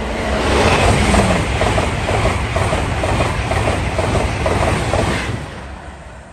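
LNER Azuma high-speed electric train passing close by at speed: a loud rush of wheels and air with a rapid, regular clickety-clack of wheels over the track, falling away about five seconds in as the train clears.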